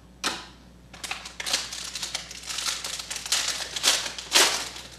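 Clear plastic wrapper of a trading card pack being torn open and crumpled by hand: an irregular run of crinkling and tearing rustles, loudest near the end.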